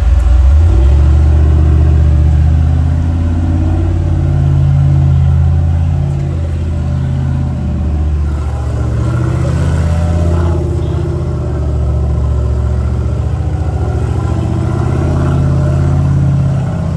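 LS V8 engine of a race-built Jeep rock crawling up a sandstone ledge at low revs. Its note rises and falls several times as the throttle is worked.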